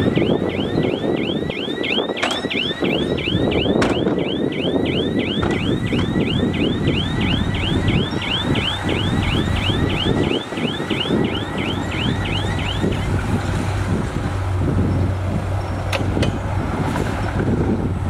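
Heavy diesel dump truck engines running, with a truck's chirping reverse warning alarm repeating about three to four times a second. The alarm stops about two-thirds of the way through, leaving the engines running with a steady low hum.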